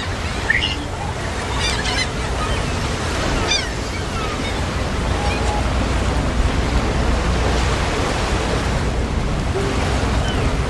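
Steady rush of surf with wind rumbling on the microphone, and a few short seagull calls in the first few seconds.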